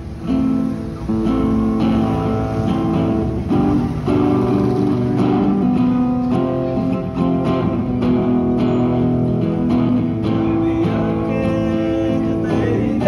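Acoustic guitar strummed in a run of chords, starting about half a second in.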